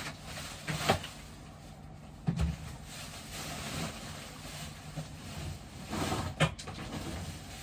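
A few brief knocks and clicks over a steady low room hum.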